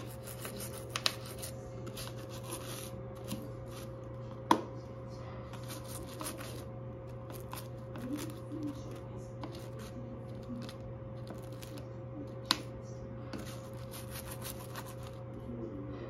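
Toothbrush bristles scrubbing a plastic light-switch plate and its toggles in bursts of quick short strokes, with two sharp clicks standing out, over a steady low hum.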